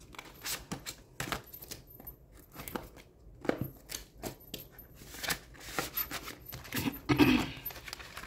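Paper dollar bills and the clear plastic pages and zipper pouches of a cash-stuffing binder being handled: rustling and crinkling with many short clicks and snaps, loudest about seven seconds in.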